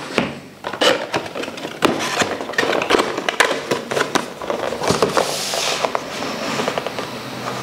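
Cardboard packaging being handled: a retail box and its inner cardboard sleeve pulled off a carry case and moved about, giving many sharp knocks and taps, with a rustling, sliding scrape about five seconds in.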